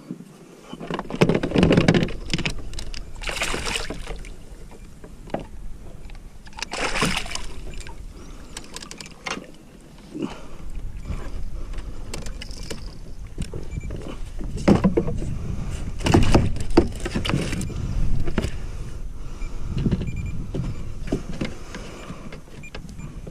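Irregular rustling and knocking of hands, line and gear against a plastic fishing kayak as a caught fish is unhooked and stowed, in uneven bursts.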